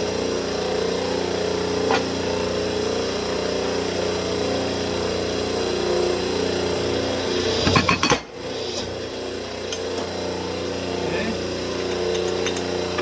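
A machine's electric motor running with a steady hum. About eight seconds in there is a short clatter of metal parts.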